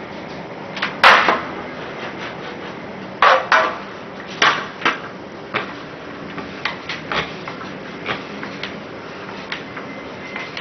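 Meat grinder running steadily as it grinds scrap silicone rubber into crumbs, with a string of sharp knocks and clatters from handling the metal grinder and tray. The loudest knock comes about a second in, a pair follows around three seconds in, and lighter ticks come after.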